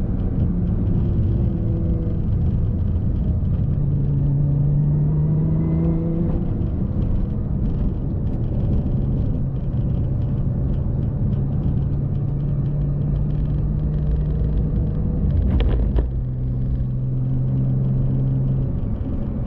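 Car running on the road: steady engine hum and road rumble, with the engine note stepping in pitch a few times and a single short knock about sixteen seconds in.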